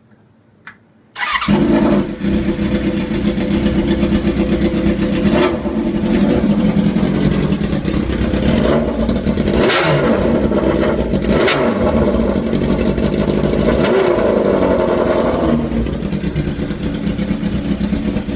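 Suzuki GSX-R 750 inline-four motorcycle engine in a home-built chopper starting for the first time: a short click, then it catches about a second in and runs loud, with several throttle blips, easing to a lower, steadier run near the end.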